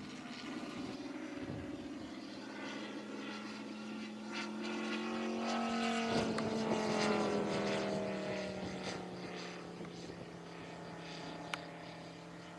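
Engine and propeller of a radio-controlled scale Sea Fury model in flight: a steady drone that grows louder as the plane passes, its pitch dropping from about halfway as it moves away and fades. A single short tick near the end.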